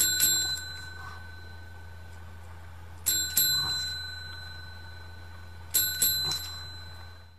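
A small metal bell struck three times, about three seconds apart, two quick dings each time, each left ringing and slowly fading. A steady low hum runs underneath.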